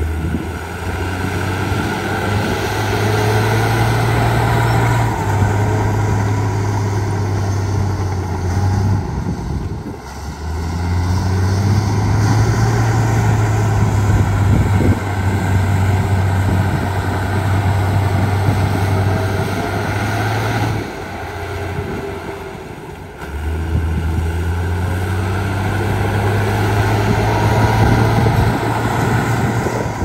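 Heavy diesel engine of earthmoving machinery running hard, its low engine note stepping up and down in pitch. It eases off twice, about a third of the way in and again about two-thirds in.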